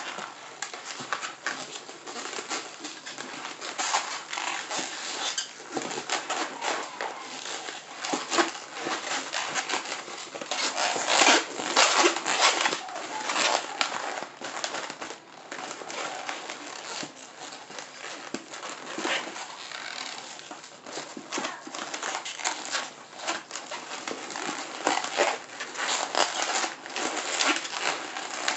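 260 latex modelling balloons squeaking, creaking and rubbing as hands twist and press them into petals: a dense, uneven run of short rubbery squeaks and crackles, loudest for a couple of seconds about eleven seconds in.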